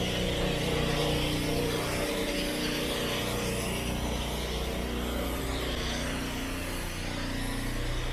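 Motor vehicle engine running at a steady idle, a low hum that eases a little near the end.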